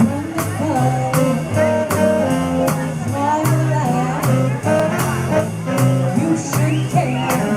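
Up-tempo swing jazz with saxophone and brass over a quick, even beat.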